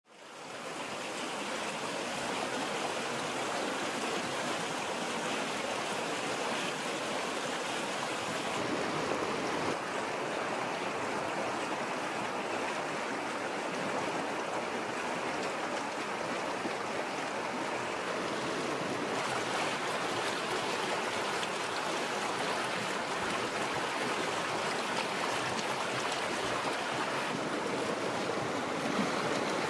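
Shallow river rushing over rocks, a steady flowing-water rush that fades in over the first second.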